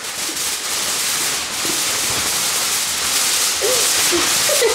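Large crumpled sheets of aluminium foil being shaken and waved about, a loud continuous crinkling rustle.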